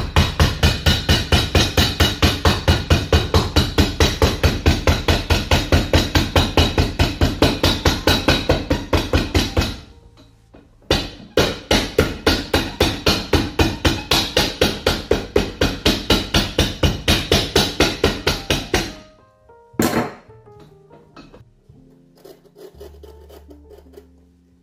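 Cobbler's hammer beating a freshly glued leather sole down onto a shoe on a last stand, pressing it to bond: fast, even blows about five a second in two long runs, a short pause between them, then one last blow.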